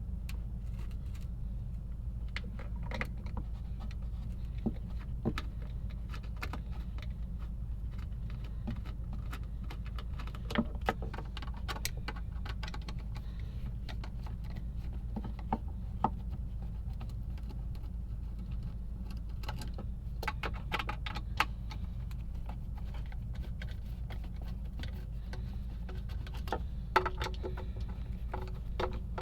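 Scattered clicks and light metallic clatter of hand tools and small parts being handled during the teardown of a vintage amplifier, irregular taps with a few sharper knocks, over a steady low hum.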